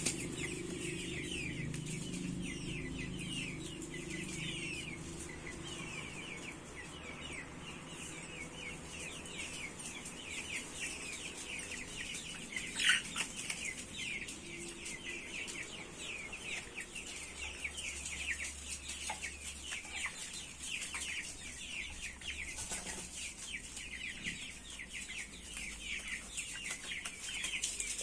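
A flock of broiler chickens calling: many short, high, falling peeps overlapping without a break, with one louder call about thirteen seconds in. A low hum underneath stops about six seconds in.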